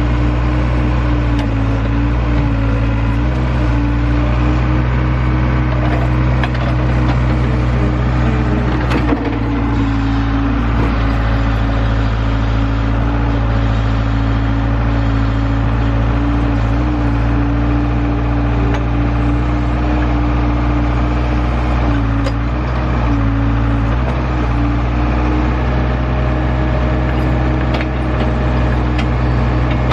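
Heavy earth-moving equipment's engine running steadily at a constant speed, with scraping and a knock about nine seconds in.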